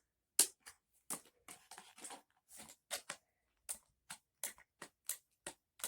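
Scissors snipping through packaging: a run of short, sharp cuts coming irregularly, a few a second.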